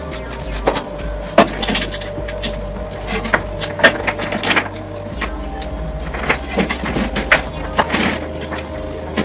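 Steel chain links clinking and jingling against each other and on a round steel grill grate as they are handled, in irregular sharp clinks.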